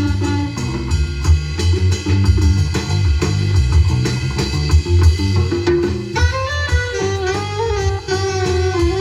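Jazz music with drum kit and saxophone playing through a car's aftermarket hi-fi system, fed from the stock radio's CarPlay source.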